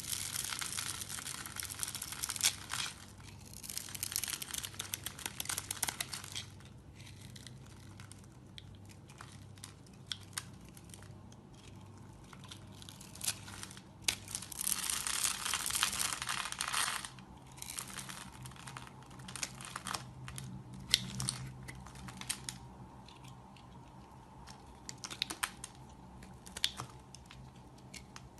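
A knife carving a bar of soap: scraping, shaving strokes in bursts of two or three seconds, with scattered small clicks and crunches between them.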